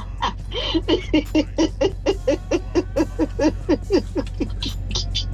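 A person laughing hard in a long, rhythmic run of "ha-ha" pulses, about five a second, that trails off near the end.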